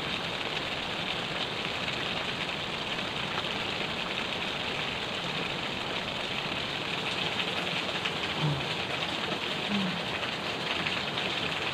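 Steady rushing of river water, an even hiss that is strongest in the upper range, with two faint short sounds near the end.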